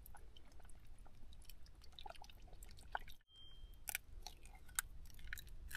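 Faint scattered clicks and light crunching from handling food over a cooking pot: a spoon working in the pot, then an egg being cracked over it.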